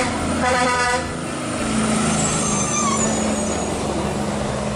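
A tractor-trailer's air horn gives a short blast within the first second, then the truck's diesel engine runs steadily as it drives past.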